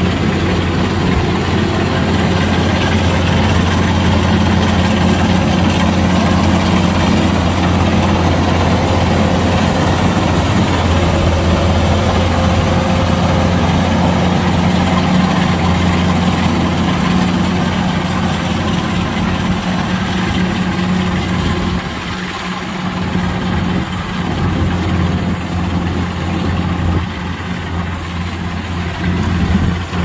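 Kubota DC-105X rice combine harvester running steadily under load as it cuts rice: a loud, even diesel drone that sags briefly about two-thirds of the way through, then picks back up.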